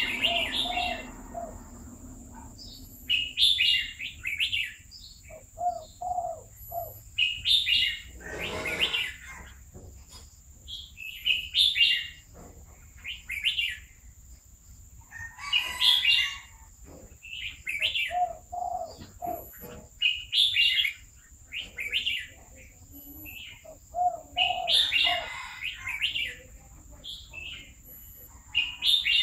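Red-whiskered bulbul singing short, bright warbled phrases, repeated every two to three seconds, over a steady high-pitched hiss.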